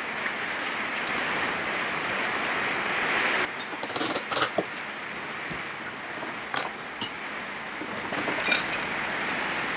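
Metal engine parts clinking and knocking as a classic Mini engine is taken apart, with a cluster of hammer taps on the crankcase a few seconds in and a brighter ringing clink near the end, over a steady workshop hiss.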